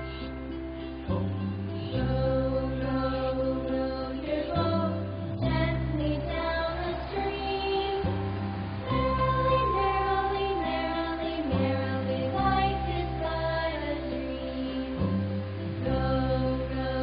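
Slow background music with sustained bass notes and a sung or chanted melody line.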